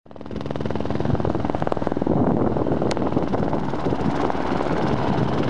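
Helicopter flying in close, its rotor beating steadily.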